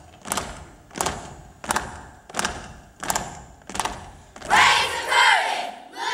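A group of children beating out a steady body-percussion rhythm in unison, six sharp hits about two-thirds of a second apart. About four and a half seconds in they break into a loud shouted chant together.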